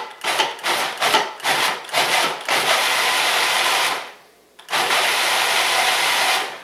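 Food processor chopping tomatillo salsa: a quick series of short pulses for the first two and a half seconds, then two longer runs of about a second and a half and two seconds with a short stop between them.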